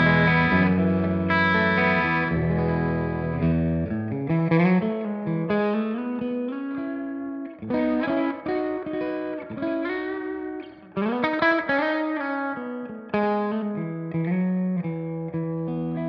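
Electric guitar with humbucker pickups played through the Silver Llama amp-sim plugin on its condenser-mic setting, with a slightly driven vintage amp tone. A ringing chord opens, then come picked phrases and chord stabs.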